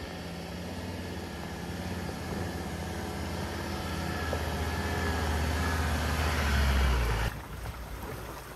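A four-wheel-drive vehicle's engine running steadily and growing louder for about seven seconds, then stopping abruptly. After it comes a quieter hiss with a few light clicks.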